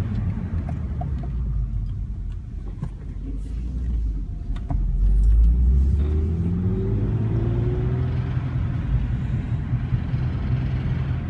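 2005 Infiniti G35 sedan's 3.5-litre V6 under acceleration, the engine note rising from about six seconds in, with a rattle under load between 2100 and 2900 rpm. The owner traced the rattle to a bad timing chain tensioner; a loose exhaust heat shield is the other common cause.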